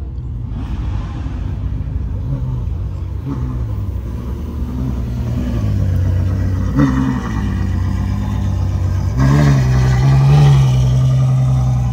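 Ferrari GTC4Lusso's engine running at low revs as the car pulls slowly along. It gives a short blip about seven seconds in, then the revs rise and it gets louder about nine seconds in, holding there near the end.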